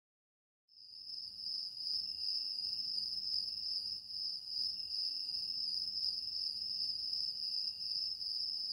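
Steady, high-pitched cricket trill, cutting in suddenly out of silence about a second in, as night-time ambience.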